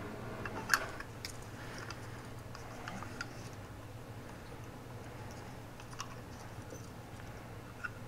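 Scattered small clicks and ticks of a paperclip wire and a Zippo lighter case being handled and bent by hand, the sharpest click about a second in, over a faint steady low hum.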